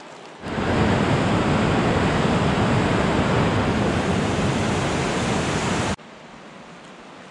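River rapids rushing: a loud, steady wash of whitewater that starts about half a second in and cuts off suddenly about six seconds in, leaving a much fainter steady hiss.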